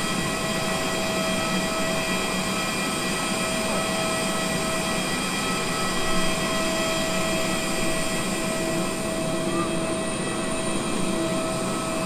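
Steady whine over a rushing hum from a parked jet airliner's auxiliary power running at the stand, with several steady tones held throughout and a slight swell about six seconds in.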